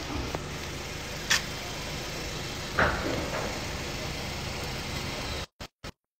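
Steady low background rumble with two short knocks, then the sound cuts off abruptly to dead silence near the end, broken only by two tiny blips.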